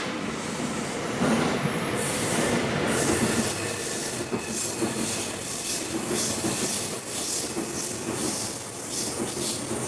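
E259 series Narita Express electric train pulling into the station and rolling past at low speed. Its wheels give a steady run of clacks over the rail joints, about two a second, over the rumble of the cars.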